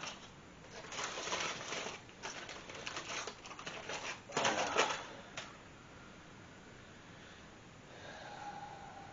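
Wrapping around a cooked ham crinkling and rustling in irregular bursts as it is pulled open by hand. The loudest tear comes about four and a half seconds in, and the rustling stops about a second later.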